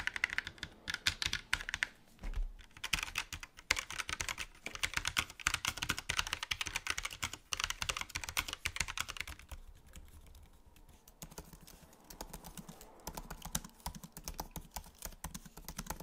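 Fast typing on a Keychron K1 Version 4 low-profile mechanical keyboard with Keychron red linear switches, a dense run of key clacks. About ten seconds in the typing turns quieter and sparser, the MacBook Pro's keyboard typed for comparison.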